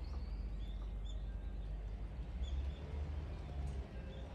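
Outdoor ambience: a steady low rumble on the microphone, with small birds giving short, faint, high chirps every so often.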